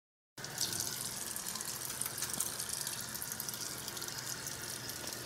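Water running from a tap into a sink: a steady splashing hiss that starts about half a second in.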